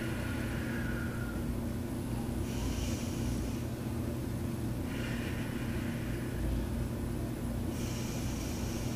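A woman breathing slowly and audibly in and out, about two full breaths, while holding a lying spinal-twist stretch, over a steady low hum in the room.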